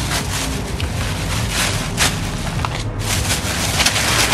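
Black plastic carrier bag rustling and crinkling in irregular bursts as hands rummage through it and handle the paper-wrapped food inside.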